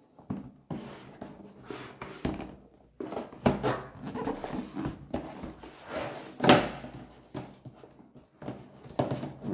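A cardboard box being handled and turned over on a wooden table: irregular scraping, rubbing and knocks of cardboard against the tabletop, with the loudest knock about six and a half seconds in.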